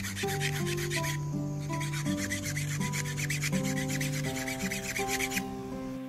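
A steel hand file rasps on the metal tip of a skewer in rapid back-and-forth strokes, sharpening the point. There is a short break about a second in, and the filing stops shortly before the end. Background music plays underneath.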